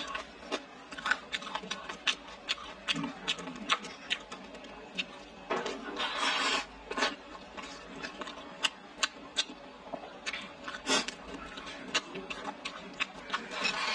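Close-up eating sounds: chewing, lip smacks and small clicks of wooden chopsticks on a ceramic rice bowl, coming quickly and irregularly. About six seconds in, a longer scraping burst as rice is pushed from the bowl held at the lips into the mouth.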